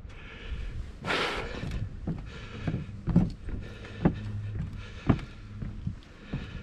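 A rustling burst about a second in, then a series of sharp metallic knocks, about one a second, from someone moving and working on a steel lattice antenna tower.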